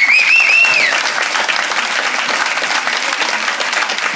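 Audience applauding steadily after the violin and accordion stop. In the first second a piercing whistle warbles up and down over the clapping.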